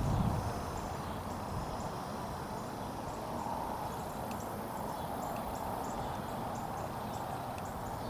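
Steady rush of shallow river water running over rocks, with faint, short, high chirps scattered through it.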